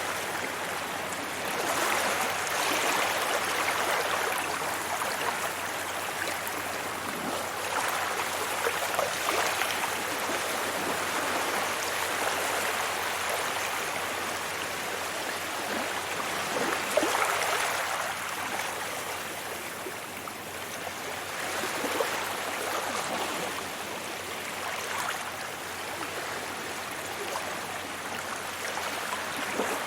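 Sea waves breaking and washing up on a beach: a continuous surf hiss that swells four times, the strongest about halfway through.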